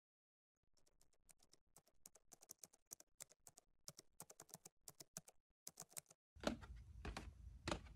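Faint typing on a laptop keyboard, a quick irregular run of soft key clicks. About six seconds in it gives way to a low room hum with three thuds.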